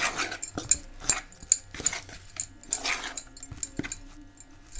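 A steel spoon scraping and clinking against a steel bowl in repeated strokes while flour is mixed into a crumbly dough, with sharp clicks where the spoon strikes the metal.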